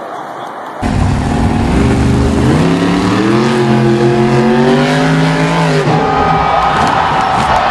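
Monster truck's supercharged V8 engine revving hard, starting loud about a second in. Its pitch climbs over the next second or so and holds high, then drops away just before six seconds and picks up again.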